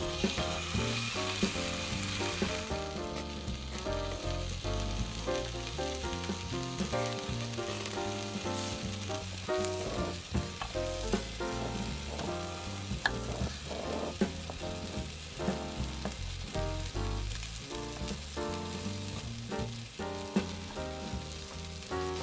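Bacon-wrapped camembert sizzling on a hot multi griddle, the sizzle strongest for the first few seconds after it goes on. Steady background music runs under it, and a few sharp knife knocks on a wooden cutting board come around the middle.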